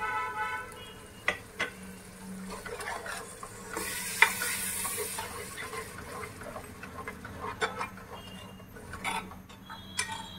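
Masala frying in a pan of hot oil as it is stirred with a spatula: repeated scrapes and knocks against the pan over a light sizzle. The sizzle grows brighter for about a second around four seconds in, with the loudest knock there.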